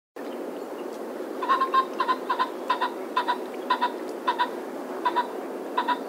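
Common pheasant giving a series of short two-note calls, about ten in a row beginning about a second and a half in, slowing as they go, over a steady low background rumble.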